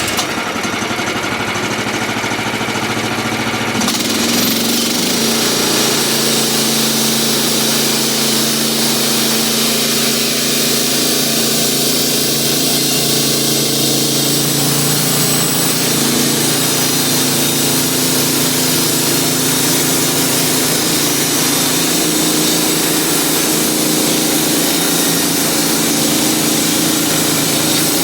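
Portable bandsaw sawmill's gas engine running steadily at speed. About four seconds in the sound turns fuller and hissier, and the engine's pitch wavers a little after that.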